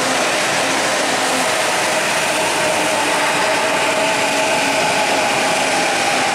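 Hanshin electric train running slowly past: a steady rumble of wheels on rail with an electric motor whine held at one pitch.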